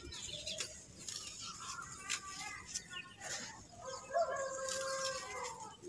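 Dry red dirt clods crumbling between the hands, with small crunches and grit pattering down onto a dirt pile. About four seconds in, a drawn-out bird call, the loudest sound, lasts a little over a second.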